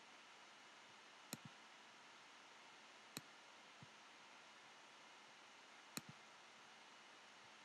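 Three sharp computer mouse clicks over faint hiss, about a second in, about three seconds in and about six seconds in, the first and last each followed at once by a softer click, with a faint tick in between.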